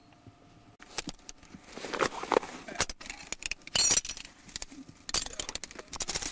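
Metal carabiners and quickdraws on a climbing rack clinking and jangling as they are handled, with rustling, starting about a second in.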